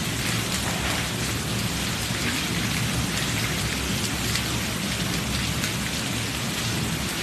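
Heavy rain pouring steadily, a dense, even hiss of falling drops.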